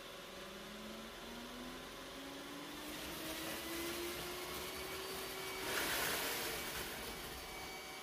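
Two iRobot Roomba robot vacuums, an s9 and an i7, running in spot-clean mode and sucking up spilled granola from a hardwood floor. A faint motor tone rises slowly in pitch, and the suction noise grows, loudest about six seconds in.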